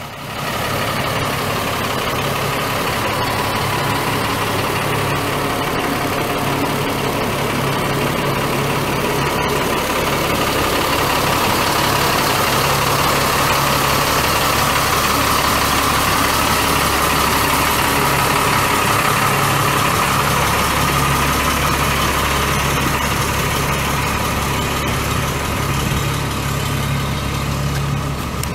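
Caterpillar 3126 inline-six turbo diesel of a Sterling LT7501 dump truck idling steadily, with no revving.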